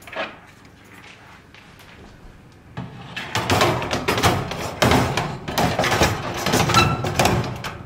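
Metal baking tray going into a kitchen oven: a light click, then from about three seconds in several seconds of loud clattering and knocking of metal against the oven rack and door.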